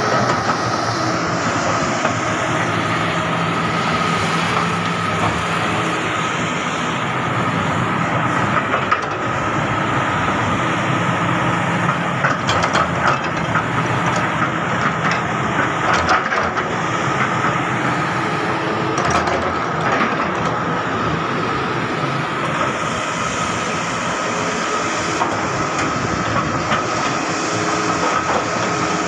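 Kobelco SK350 crawler excavator working, its diesel engine running steadily with a high whine over it. Clusters of sharp clanks come around the middle.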